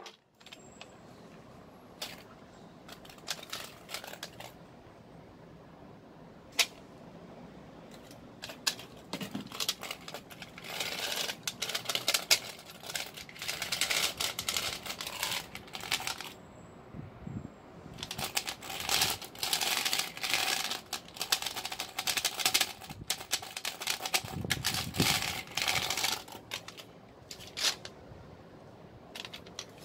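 Plastic clicking and clattering from an HP mechanical keyboard's keys and keycaps being worked on: scattered single clicks at first, then two long bursts of rapid, typewriter-like clatter.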